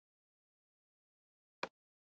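Near silence, broken by a single short, sharp click about one and a half seconds in.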